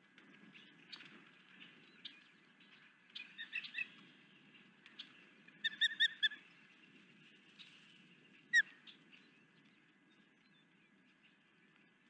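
Osprey calling: short high chirps in quick runs, a few about three to four seconds in, four loud ones around six seconds in, and a single falling note a couple of seconds later.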